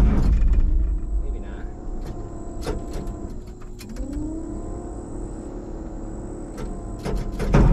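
Starter cranking the Perkins diesel of a 1980s Massey Ferguson 850 combine without it firing, with the separator, which the operator thinks is in drive, turning with it. The cranking stops just under a second in, a few clicks sound over a quieter stretch, and cranking starts again near the end.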